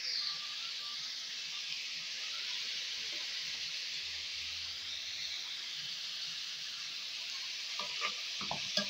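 Chopped red onions sizzling steadily in hot oil in a stainless steel pot. Near the end a spoon begins to knock and scrape against the pot as the onions are stirred.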